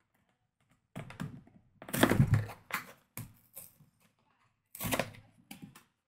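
A product box's packaging being handled and torn open by hand: irregular bursts of knocks and crackling, the loudest about two seconds in and a last cluster near the end.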